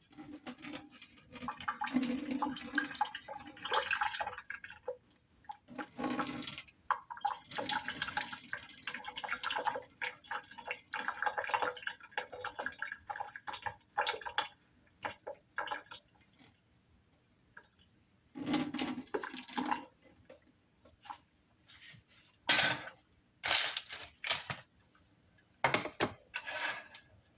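Water being drained off a pot of boiled instant noodles, pouring and splashing in uneven spurts for about fifteen seconds, then a few separate short bursts of splashing or clatter.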